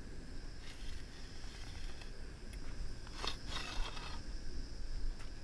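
Hand soil auger being twisted down into sand, the sand scraping against the bit, with a louder scrape about three seconds in.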